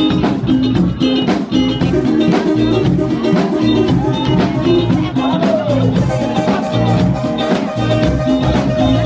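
Live band music: electric guitar over hand drums keeping a steady beat, with bent notes about four seconds in and one note held for about three seconds in the second half.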